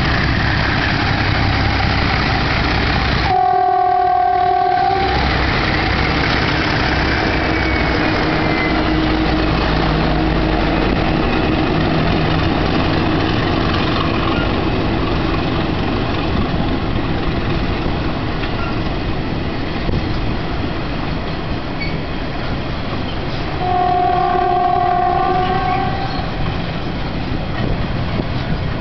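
Freight train hauled by several diesel-electric locomotives passing close by, with a steady loud rumble of engines and rolling wheels. The locomotive horn sounds twice, a chord of several tones: about three seconds in, and again some twenty seconds later, each blast lasting about two seconds.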